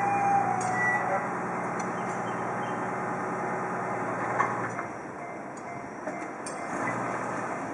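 Container freight train hauled by an EF210 electric locomotive passing at speed: steady rumble of wheels on rail, with occasional sharp clacks as wheels cross rail joints. A low hum drops away about five seconds in and partly returns near the end.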